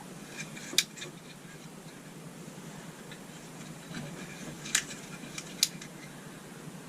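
A few sharp clicks and light handling noises from work on a 12 V switch and its wiring. The loudest clicks come about a second in and twice close together near five seconds.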